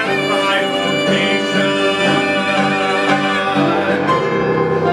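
Accompaniment to a musical number, with long held notes; the higher notes drop away about four seconds in.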